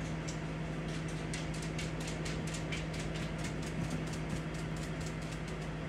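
A countertop air fryer oven's fan running with a steady hum, while a slotted metal spatula mashing patties flat on its metal tray makes quick, light clicks and taps several times a second.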